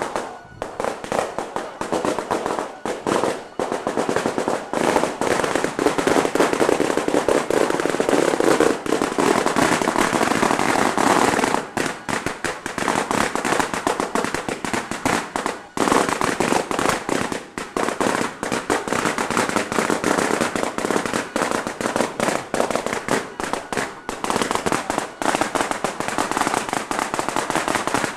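A long string of firecrackers going off, a dense, rapid run of bangs that barely lets up, with brief lulls about 12 and 16 seconds in.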